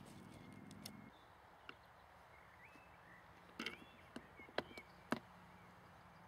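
Quiet outdoor ambience with a few short, high bird chirps and several sharp clicks, the loudest two about four and a half and five seconds in. A faint low hum stops about a second in.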